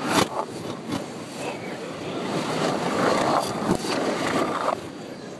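Bowling-alley noise of balls rolling and pins clattering, played in reverse: a rumbling clatter swells over about two seconds and then cuts off sharply near the end. A sharp knock comes right at the start.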